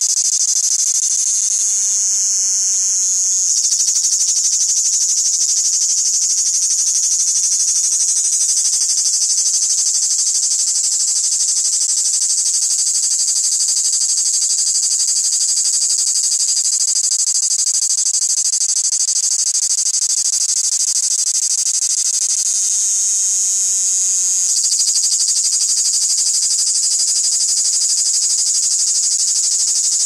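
Male cicada singing a continuous, high-pitched buzz without a break, shifting slightly in tone a few seconds in and again near the end.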